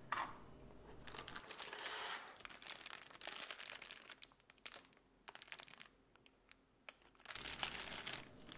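Plastic packaging crinkling and rustling in bursts of small crackles as figure parts are handled and unwrapped, quieter for a few seconds past the middle, then louder again near the end.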